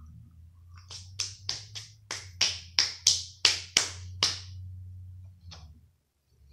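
A person eating up close: about a dozen sharp, wet mouth smacks at roughly three a second, then one more a second later, over a steady low hum.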